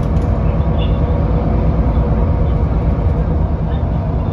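Passenger-cabin sound of a Solaris Urbino 18 articulated bus on the move: a steady, loud low rumble of engine and road noise.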